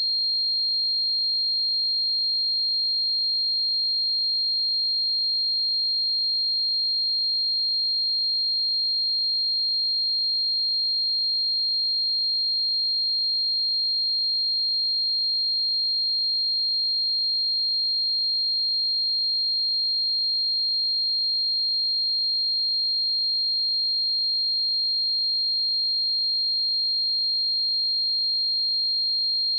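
A steady pure sine-wave test tone at 4218 Hz, a single high-pitched whistle-like pitch held without change.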